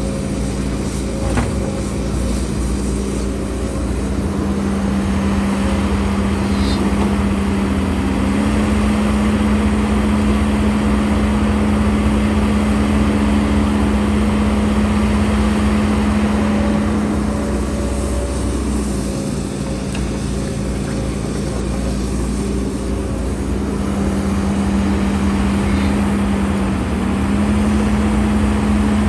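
Diesel engine of a HIDROMEK HMK230LC excavator running steadily under hydraulic load, its pitch stepping up a little about 8 s in, dropping near 18 s and rising again near the end as the machine works through its dig-and-load cycles. A broader rushing noise swells and fades twice with the work.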